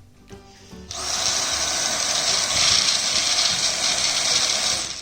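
Dyson V7 Trigger Pro cordless handheld vacuum switched on about a second in, running with a loud steady whir for about four seconds as it sucks up cereal, then switched off just before the end.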